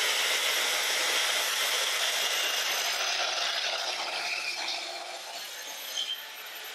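Festool TS 75 EQ plunge-cut track saw cutting along its guide rail through a walnut tabletop: a steady dense rushing noise with a faint high whine, gradually getting quieter as the cut goes on.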